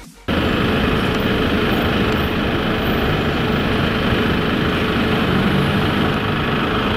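Street traffic noise from car and bus engines in slow-moving city traffic: a loud, steady, dense noise that starts abruptly a moment in.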